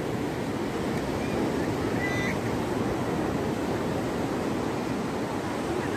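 Steady wash of sea surf breaking on a sandy beach. A short faint call sounds about two seconds in.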